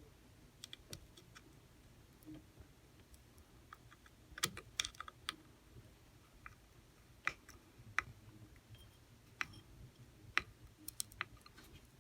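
Scattered light clicks and taps of small metal spinning-reel parts and a small tool being handled during reassembly of a Shimano Stradic 4000 FH reel, with a cluster of sharper clicks about four to five seconds in.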